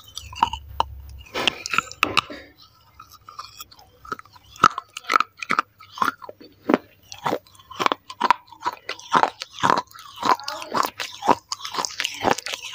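Pieces of a broken baked-clay saucer bitten and chewed close to a clip-on microphone: a fast run of sharp crunches, thinning briefly about three seconds in.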